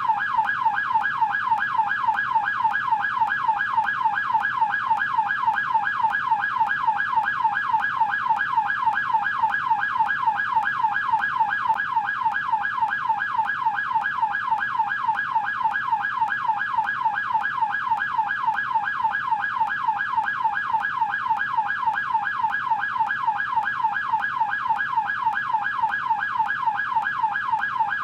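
American police car siren on its yelp setting: a rapid, unbroken up-and-down wail repeating about three to four times a second.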